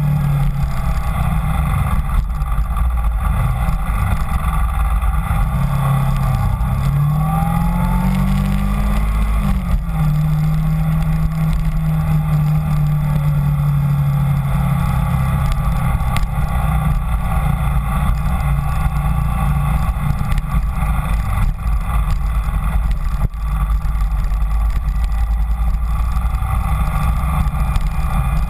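Kawasaki Ninja 250 parallel-twin engine running under way. It rises in pitch as the bike accelerates about a third of the way through, drops at an upshift, then holds a steady cruise. A low wind rumble on the microphone runs underneath.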